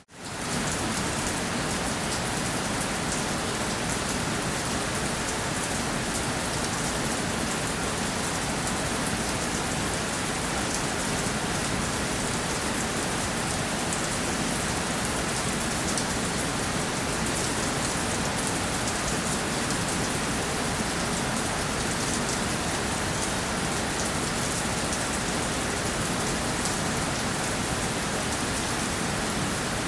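Steady rainfall: an even hiss with a fine patter of drops on a surface. The sound briefly drops out at the very start, then comes back in.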